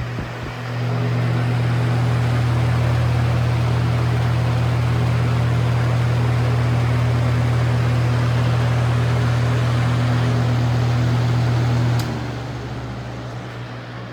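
Lasko box fan's full-sized McMillan motor running with a loud, steady electrical hum over the rush of the blades. The hum swells up about a second in. About twelve seconds in there is a click and the hum stops abruptly, leaving the blade noise.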